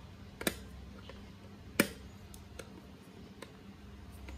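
A few short, sharp plastic clicks and taps as fingers handle the casing of a Sinocare AES-U111 digital blood pressure monitor around its battery cover. The loudest click comes a little before the middle.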